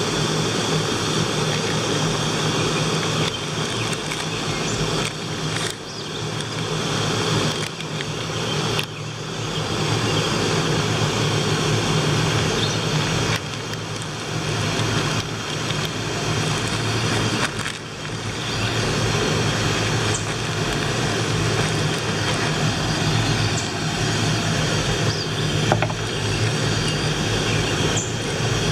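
Canister gas backpacking stove burning steadily under a lidded pot of water: a constant rushing hiss with small dips in loudness.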